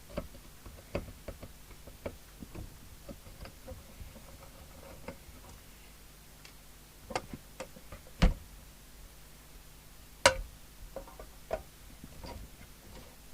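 Scattered clicks and light knocks of a Harrier CB radio's metal case and screws being handled as it is taken apart, with two sharper knocks about eight and ten seconds in.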